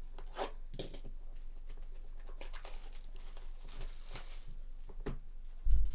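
Cardboard trading-card hobby box being handled and its wrapping opened: a run of crinkling, scraping and tearing sounds. A brief, loud, low thump near the end.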